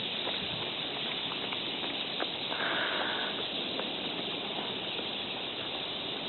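Steady outdoor hiss with faint, scattered short calls from a large flock of water birds feeding on the bay; one call stands out briefly, about two and a half seconds in.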